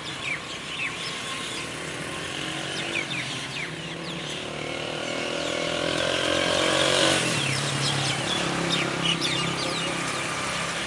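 Many small birds chirping in short, quick calls while a motor vehicle's engine passes, its pitch rising over a few seconds and breaking off about seven seconds in, then running lower again near the end.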